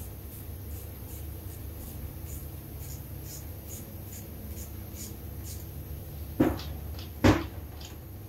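Two sharp knocks about a second apart near the end, from metal parts and tools being handled on a bare engine block, after a run of faint light clicks, over a low steady hum.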